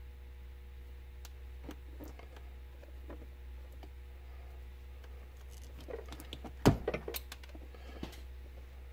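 Wire strippers working on the plastic jacket of a four-conductor telephone cable: faint scattered ticks and handling noise, then a quick cluster of sharp snaps about two-thirds of the way through as the jacket is cut and pulled off. A steady low hum sits underneath.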